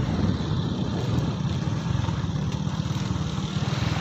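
Small motorcycle engine running steadily while the bike rides along a dirt track.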